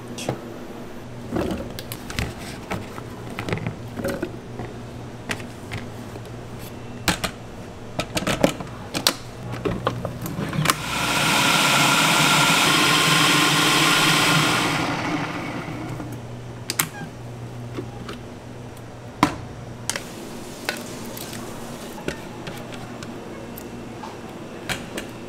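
Food processor chopping red peppers, running for about four seconds midway with a steady whine over the motor, then winding down. Before and after, scattered clacks and knocks of plastic containers and utensils being handled.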